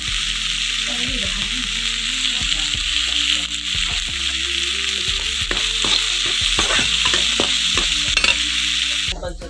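Chickpeas sizzling as they fry in a steel kadhai, with a steel spatula scraping and clicking against the pan as they are stirred. The sizzle cuts off abruptly near the end.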